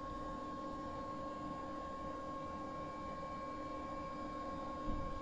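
Steady electronic whine from the homemade ESP32 internet radio's amplifier and speakers while it starts up, before any station plays: a thin high tone over a low hum and hiss. A short low thump near the end.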